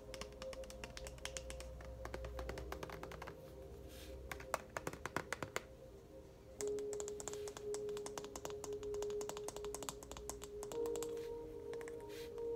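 Rapid, irregular ASMR tapping on small hard objects, with a cluster of sharper taps about halfway through. Soft background music of long held notes plays underneath and changes pitch twice.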